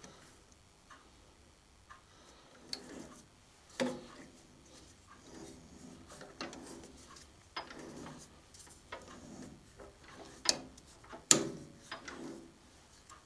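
Scattered sharp clicks and short knocks of a tap being turned by hand into a drilled hole, working in a spring-loaded tap follower, the loudest about 8 and 11 seconds in.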